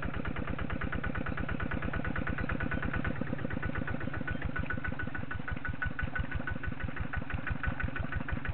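Kubota light tractor's small diesel engine running with an even chugging beat as it works through a flooded rice paddy, a little louder near the end as it comes closer.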